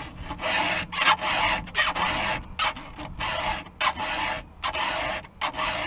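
Round chainsaw file rasping across the cutters of a saw chain, hand-sharpening it in a quick series of short strokes, about two a second.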